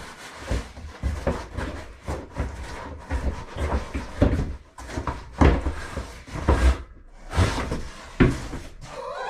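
Packaging being handled: irregular knocks, thuds and rustles of cardboard and wrapping as parts are taken out of a box.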